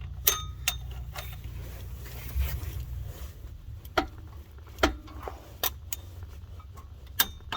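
Sharp, scattered metallic clicks and clinks from a torque wrench being worked on bolts, about six over the stretch, over a low steady rumble.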